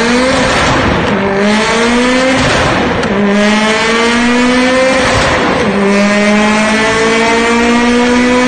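Mitsubishi Lancer Evolution IX's turbocharged 2.0-litre inline-four (4G63) with an aftermarket exhaust, pulling hard on a chassis dyno. It revs up through the gears: the pitch climbs in each gear and drops at upshifts about 1, 3 and 5.5 seconds in, and each gear runs longer than the last.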